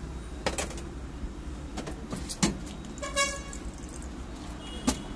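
Steady road-traffic rumble with a short vehicle horn toot about three seconds in. Three sharp clicks of a spoon against steel bowls.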